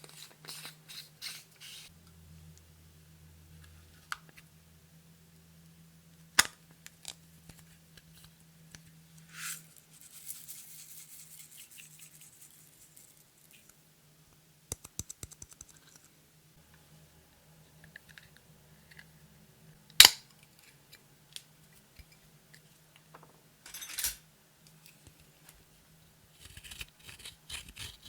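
Close-up handling of makeup and clear slime: scattered crackles and snips, a sharp click about six seconds in and a louder one about twenty seconds in, with a high hiss for a few seconds around ten seconds in.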